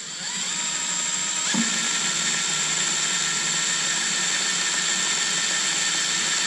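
Cordless drill with a cobalt bit drilling a pilot hole into a stripped steel screw. The motor's whine rises over about the first second and a half, then holds steady.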